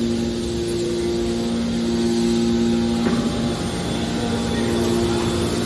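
A steady mechanical drone with a low hum, the hum dropping out briefly about three seconds in.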